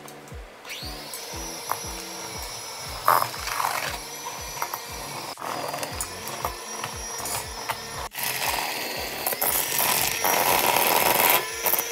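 Electric hand mixer running with a steady whine, its beaters churning butter and sugar in a stainless steel bowl. It starts about a second in, breaks off briefly a couple of times and gets louder near the end. Background music with a steady beat plays underneath.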